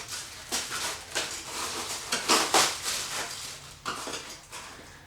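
Rustling and clattering of packing material and grill parts being handled as a side shelf is pulled out of the box, with a series of sharp knocks, the loudest about two and a half seconds in.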